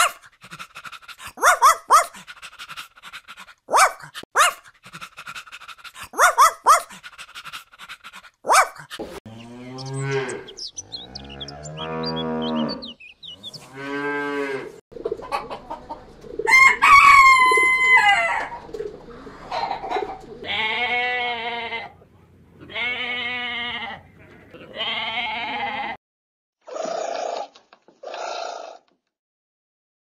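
A run of separate farm-animal calls: sharp clicking calls first, then three low drawn-out calls, then a rooster crowing once, a long bright crow about sixteen seconds in. Groups of shorter pitched calls follow.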